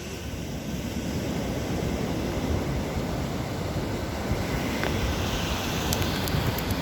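Sea waves washing on the shore with wind buffeting the microphone, a steady rush with low rumble. A few small clicks near the end.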